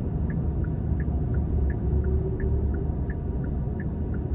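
Car turn-signal indicator ticking, about three clicks a second alternating in pitch, over the steady rumble of the car running at low speed inside the cabin.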